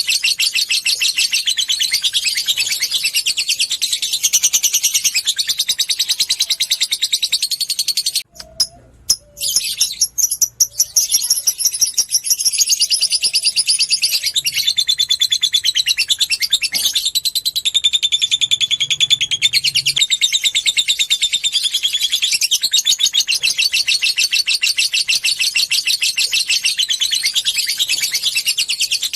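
Lovebird giving its long chattering trill (ngekek): a fast, unbroken run of high, sharp chirps. It breaks off for a couple of seconds about eight seconds in, then resumes.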